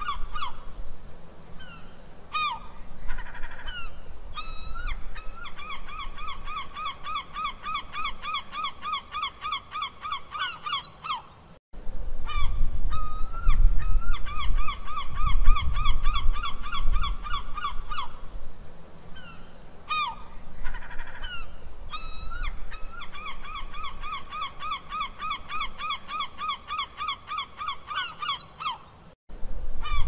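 Seagull calling in long rapid runs of squawking notes, about four a second, with a few single calls between the runs and a low rumble underneath. The recording is a loop that breaks off briefly and restarts twice.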